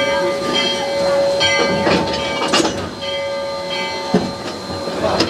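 Steam locomotive No. 40 standing at rest, hissing steam with a steady whine and a few short, sharp noises.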